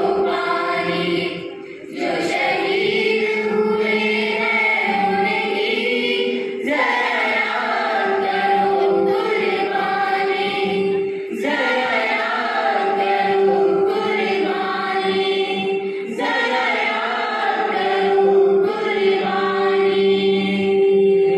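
A mixed group of students singing a slow patriotic song together into microphones, in long held phrases with a short break for breath every four to five seconds.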